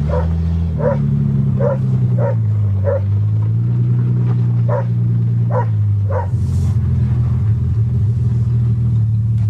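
1982 Toyota Cressida's engine running while driving, its pitch shifting a little, with a dog barking in short sharp barks about eight times in the first six seconds or so.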